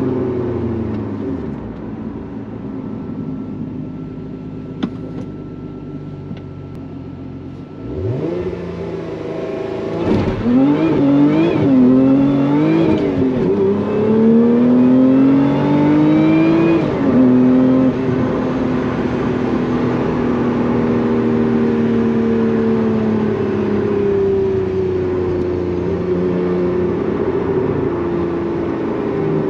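Supercharged 3.5-litre V6 of a Lotus Emira heard from inside the cabin. It is coasting at first with falling revs, then jumps in pitch about eight seconds in as the car is shifted down from third to second. It revs up and down under changing throttle in second, drops in pitch as it shifts up to third, then runs at a steady part-throttle cruise with slowly falling pitch.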